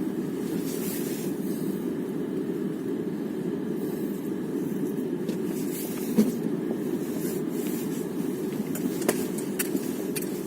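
Car driving with a steady road and running rumble, broken by a few sharp knocks: the loudest about six seconds in, two lighter ones near the end. This is the knock that shows up while the car is moving.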